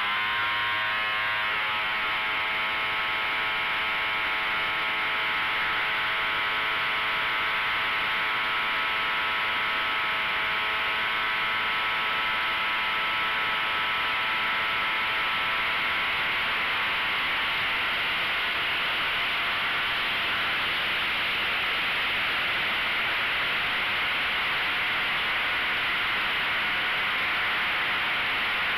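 An RC model plane's motor and propeller running, heard from right beside the propeller: a steady whining drone whose tones slide slowly lower and blur into an even rushing noise about twenty seconds in.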